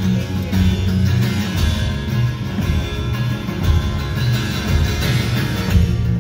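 Live band playing an instrumental passage with no vocals: a strummed acoustic guitar together with an electric guitar.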